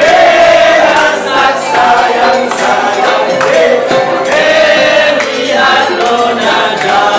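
A group of voices singing a song together, with a ukulele strummed along.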